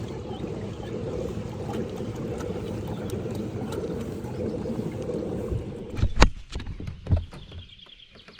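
A kayak moving out on the water, with a steady low rushing noise that drops away near the end. Two sharp knocks about a second apart break in just before it drops, the first the louder.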